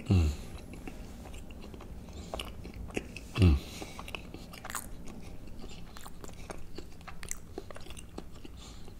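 Close-miked mouth chewing a spoonful of gumbo with rice, with many small wet mouth clicks. Two brief, louder low sounds stand out, one just after the start and one about three and a half seconds in.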